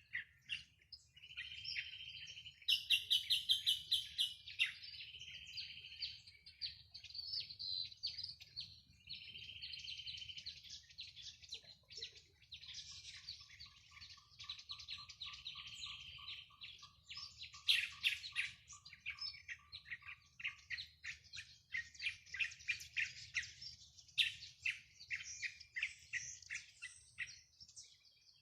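Several wild birds singing and calling at once, with chirps overlapping throughout. A buzzy one-second note repeats every few seconds, a fast high trill comes about three seconds in, and a lower, steady trill runs from about twelve to twenty seconds in.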